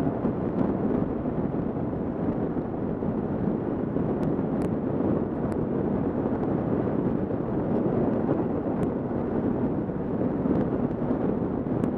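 Kawasaki KLR650 dual-sport motorcycle cruising at a steady speed, heard as a steady rush of wind and road noise on a helmet-mounted camera, with a few faint ticks.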